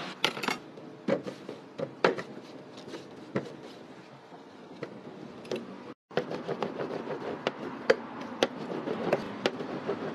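Taps and knocks of dough being worked by hand and rolled out with a rolling pin on a steel worktop, over steady background noise. After a short break about halfway, the knocks come quicker and closer together.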